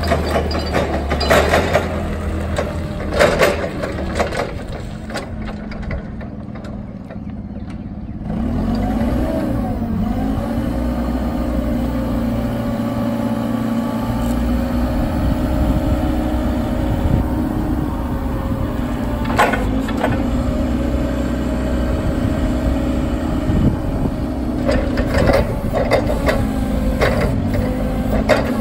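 Cat GC25K propane forklift's engine running, with clunks and rattles from the truck in the first few seconds. About eight seconds in the engine speeds up and holds a steady, higher drone with a level tone, typical of the engine driving the hydraulic pump while the mast is worked.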